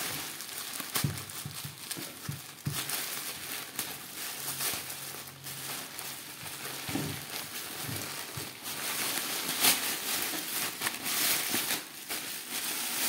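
Thin plastic mailer bag being opened by hand, rustling and crinkling irregularly as a clear plastic inner bag is pulled out of it, with a louder crackle about ten seconds in.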